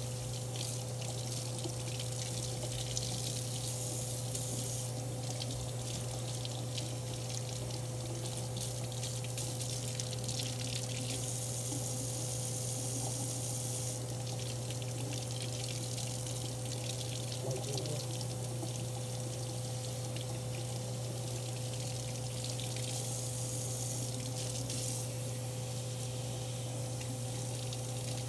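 Kitchen faucet running steadily, its stream splashing over a squirrel monkey and into the sink, with a steady low hum underneath.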